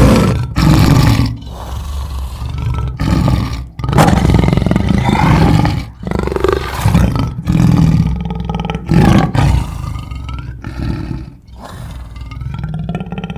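Cartoon lion roar sound effects: a string of about ten ferocious roars and growls, one after another with short breaks, some loud and some softer.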